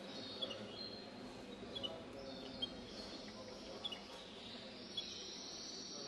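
Short, high chirps of caged finches, scattered about a second apart, over a steady background murmur.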